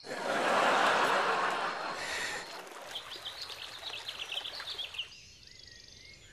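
Outdoor river ambience: a rush of water-like hiss, loudest in the first two seconds, then birds chirping in quick repeated calls for a couple of seconds before it fades to a quieter background.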